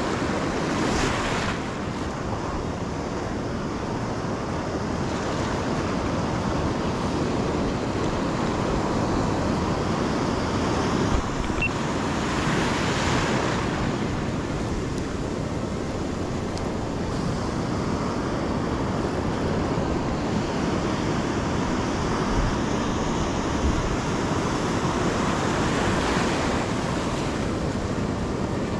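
Rough sea surf breaking and foaming over rocks: a steady rush of water with three louder wave crashes, about a second in, around the middle and near the end. Wind buffets the microphone.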